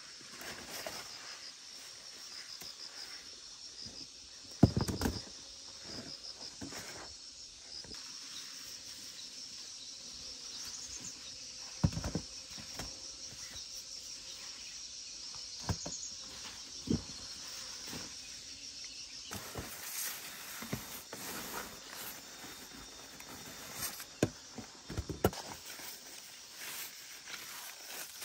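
Insects chirping in a steady, high, pulsing chorus, with squash leaves rustling and a few sharper clicks and snaps as someone moves and picks among the vines.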